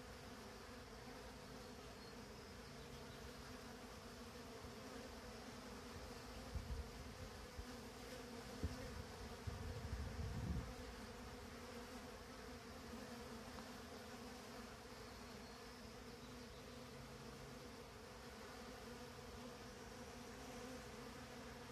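Steady humming buzz of many honeybees crowding out on the face of a hive to cool off on a hot day. A few low rumbling bumps on the microphone come through around the middle.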